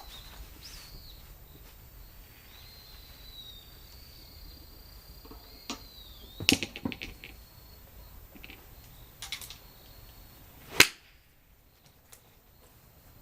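A single sharp, loud crack near the end, typical of a golf club striking a ball, after a short cluster of softer clicks and knocks about halfway through. A faint thin high chirping tone runs in the background.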